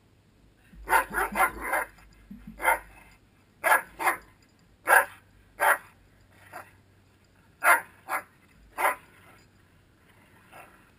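A dog barking in short, sharp barks: a quick run of four at first, then single barks about a second apart, with a faint one near the end.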